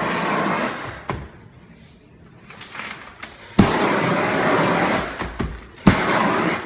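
An 18,000 BTU propane shrink-wrap heat gun firing in bursts of flame. One burst dies away about a second in; two more start suddenly with a sharp pop, near the middle and near the end, each running steadily for a second or so.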